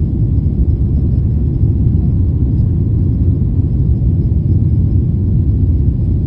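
Steady low rumble of a Boeing 777 climbing after takeoff, heard from inside the passenger cabin: engine and airflow noise.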